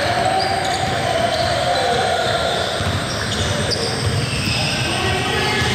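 Basketball bouncing on an indoor court during a game, with a few short high squeaks and a steady din of voices behind it.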